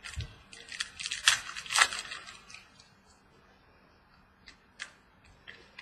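Trading cards being handled: a quick run of rustling and sharp clicks over the first two seconds or so, then a few single clicks near the end.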